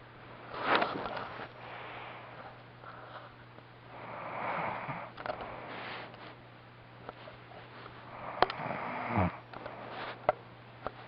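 A sleeping man snoring: noisy breaths about every four seconds, the loudest about a second in. One breath near the end carries a low tone that drops in pitch. A few sharp clicks sound in between.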